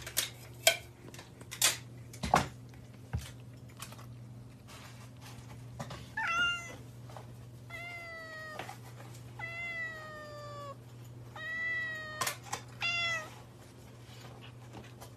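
A cat meowing about five times, drawn-out calls that fall slightly in pitch, starting about six seconds in. A few sharp taps come first, with a steady low hum underneath.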